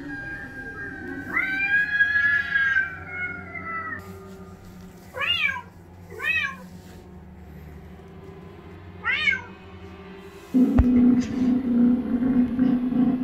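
Recorded domestic cat meowing: one long, wavering meow, then three short meows, over eerie background music. A loud low drone in the music comes in near the end.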